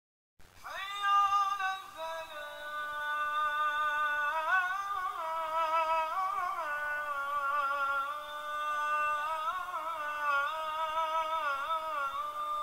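A single unaccompanied voice chanting a slow melody, with long held notes that waver and bend between pitches.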